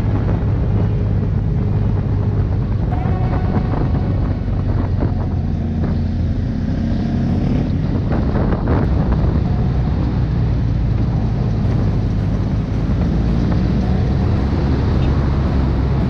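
An engine running steadily with a low, even drone, and a brief knock about halfway through.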